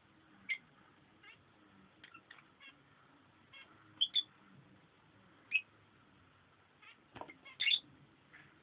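Peach-faced lovebirds chirping and squeaking in short, high calls, scattered irregularly, the loudest two close together about four seconds in and a cluster near the end. A single brief knock just after seven seconds.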